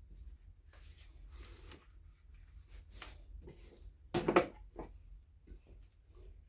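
Handling noises from unpacking a boxed reciprocating saw: scattered rustling of packaging, with one louder bump about four seconds in.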